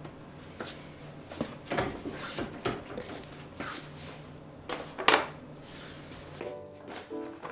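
Household movement sounds of someone coming in with shopping bags: irregular rustling of a paper shopping bag and tote, with footsteps and knocks, the sharpest knock about five seconds in. Soft background music comes in near the end.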